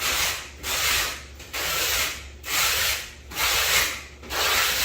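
A hand tool worked back and forth on a surface: a steady run of rasping strokes, about one and a half a second.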